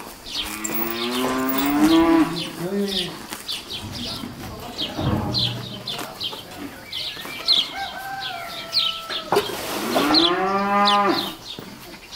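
A cow mooing: two long calls, one at the start and one near the end, each rising then falling in pitch. Birds chirp throughout.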